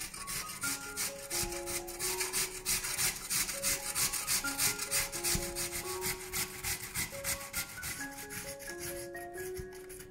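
Raw peeled potato grated on a stainless-steel box grater: quick, rhythmic rasping strokes, about four or five a second, thinning out near the end. Soft background music with light piano-like notes plays underneath.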